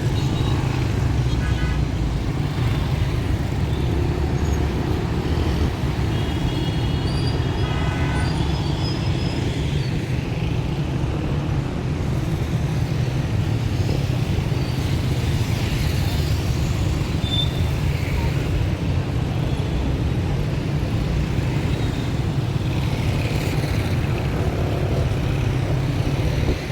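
Busy city street ambience: steady traffic rumble from passing cars and motorbikes under indistinct crowd chatter, with a short pitched tone about seven seconds in.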